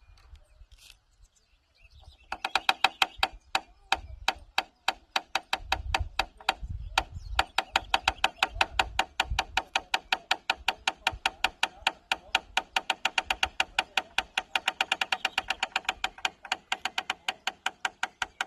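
Wooden farm gate creaking on its hinge: a long run of rapid, pitched creaky clicks, about six a second, starting about two seconds in, with a brief pause a few seconds later.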